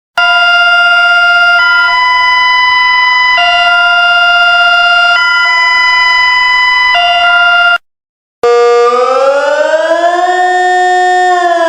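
Emergency warning siren recordings. First comes a loud electronic alarm tone switching back and forth between two chords about every second and three quarters, cutting off after about eight seconds. After a brief gap, a multi-tone civil defence siren wail rises, holds, and starts to fall near the end.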